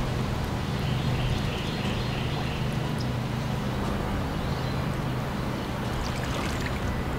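Water sloshing and swishing around a person's legs as they wade slowly through knee-deep swamp water, over a steady low hum.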